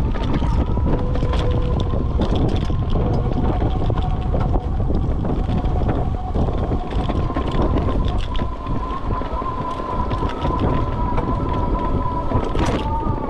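Aniioki A8 Pro Max e-bike ridden on a bumpy grass path under pedal assist: steady rumble of wind on the microphone and tyres on the ground, a faint steady whine from the electric motor, and frequent small clicks and rattles from the bike.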